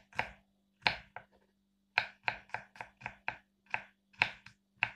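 Small kitchen knife slicing garlic cloves into thin rounds on a wooden cutting board: a quick, uneven run of sharp knocks of the blade on the board, about a dozen, with a short pause about a second in.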